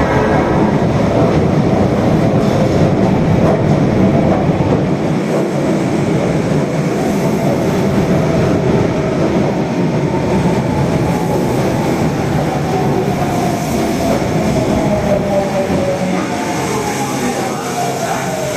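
Osaka Metro Tanimachi Line subway train running, with a steady rumble of wheels on rail. Through the second half, a motor whine falls slowly in pitch as the train slows.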